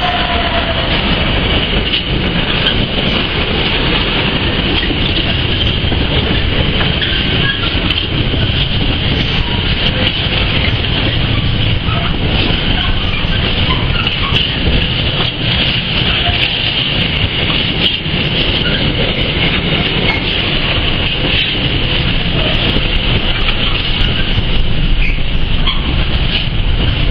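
Container freight train wagons rolling past at the platform edge: a continuous rumble and clatter of wheels on the rails, with a steady high-pitched note over it.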